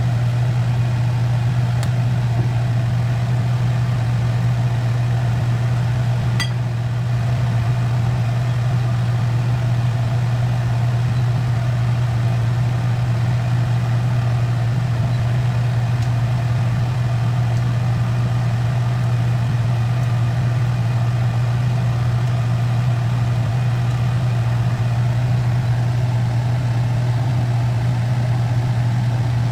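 A motor running with a steady low hum and an even hiss, unchanging throughout, with a faint click about six seconds in and another near the middle.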